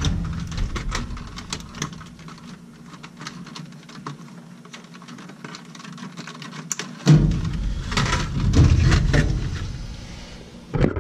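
Hands working wires and plastic parts at a furnace control board: a run of small, quick clicks and rustles. From about seven seconds in there are a few seconds of louder rubbing and bumps close to the microphone.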